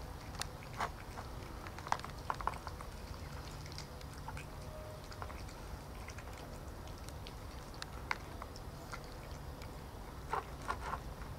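Two cats eating from a plastic tub: irregular wet chewing and smacking clicks, bunched about two seconds in and again near the end, over a low steady background hum.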